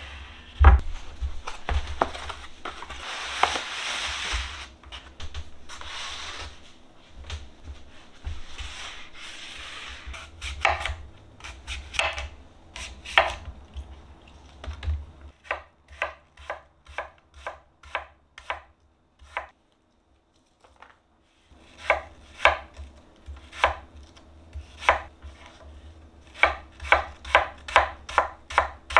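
Chef's knife cutting apples on a bamboo cutting board: crisp cuts through the fruit and repeated knocks of the blade on the wood. The knocks come singly at first, stop briefly past the middle, then quicken into a fast run of chops near the end as the apple is diced.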